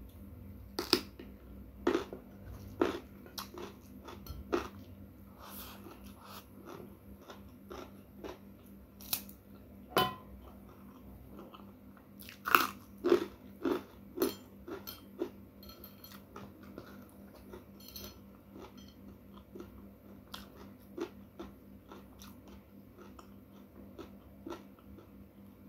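Close-miked eating: a person chewing and biting into crunchy food, with irregular crunches and wet mouth clicks, busiest about halfway through.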